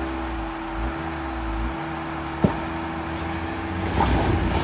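Jeep Comanche pickup's engine idling steadily, with one sharp knock about two and a half seconds in.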